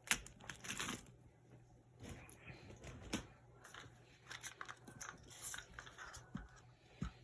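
Plastic action figures being handled and set down: scattered light clicks, taps and rustles.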